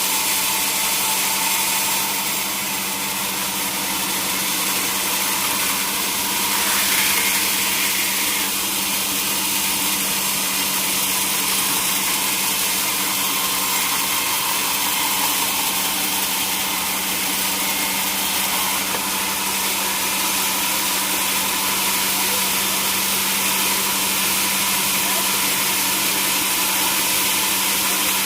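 Sawmill machinery running steadily: a constant hum under a strong, even hiss.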